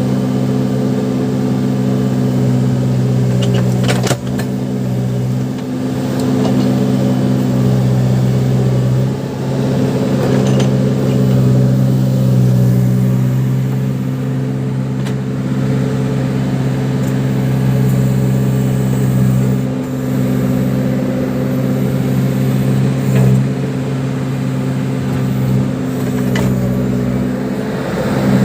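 Case 580 Super backhoe loader's diesel engine running steadily while working, its pitch dipping now and then, with a few short knocks.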